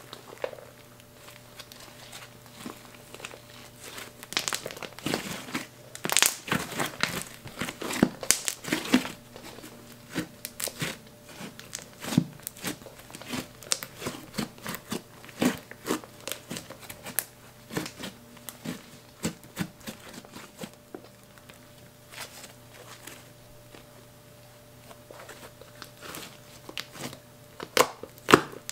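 Fluffy slime with eyeshadow powder worked into it, squished and kneaded by hand, giving off irregular crackling and popping clicks. The clicks are busiest early on, thin out past the middle, and pick up again near the end.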